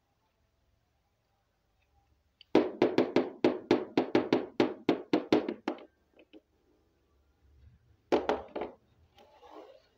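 Hollow plastic toy rhinoceros tapped rapidly on a tabletop: a quick, even run of knocks, about five a second, lasting some three seconds, then a few more knocks near the end.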